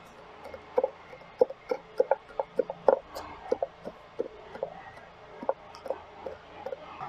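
A knife chopping fresh rosemary on a wooden cutting board: quick, irregular knocks, about three a second.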